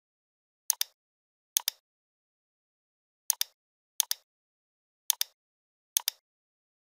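Computer mouse button clicking six times at irregular intervals, each click a quick double snap of press and release, against dead silence.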